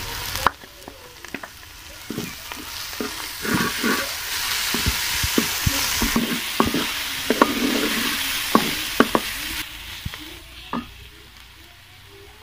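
Grated onion and garlic sizzling in hot ghee in an aluminium pot, stirred with a wooden spatula that scrapes and knocks against the pot many times. The sizzle swells in the middle and dies down near the end.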